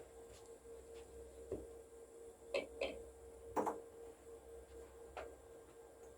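Surface noise of a 7-inch clear Lexan disc record playing after the music has ended: a handful of scattered clicks and pops, the loudest a pair about two and a half seconds in and a single one at about three and a half seconds, over a faint steady hum.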